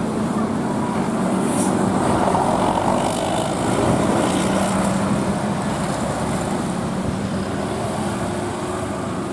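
Road vehicle passing: engine running with tyre and road noise, fairly steady, swelling a little a few seconds in.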